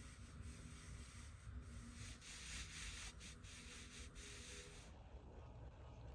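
Coarse fibre rope sliding through hands as a bucket is lowered into a well: a faint rubbing hiss in short pulls, strongest in the middle, stopping about five seconds in.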